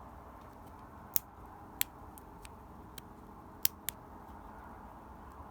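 Metal lock-picking tools working in a Master Lock padlock: a handful of sharp, separate clicks at irregular intervals, a close pair near the middle.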